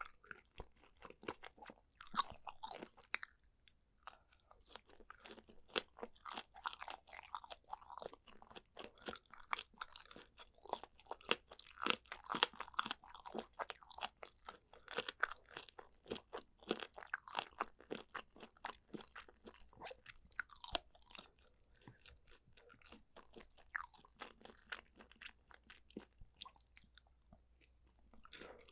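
Close-miked chewing of chewy, crunchy food: rapid wet crackles and smacks of boneless chicken feet or pork skin being chewed, with short pauses between mouthfuls.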